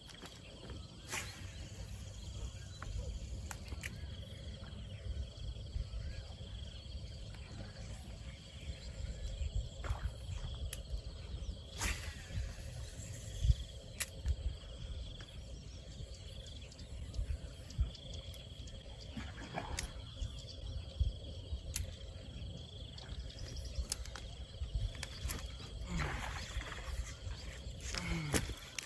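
Outdoor ambience: a steady low rumble with a faint, steady high thin tone, and scattered short clicks and knocks.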